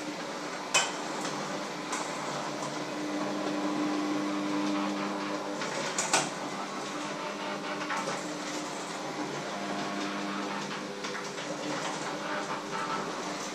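Kitchen utensils clinking and scraping against a metal bowl during food preparation, with two sharper knocks, about a second in and about six seconds in. A steady low hum runs underneath.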